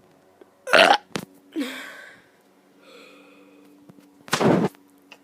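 A child burping loudly twice, about a second in and again near the end, with a short breathy sound between the burps. A faint steady hum sits underneath.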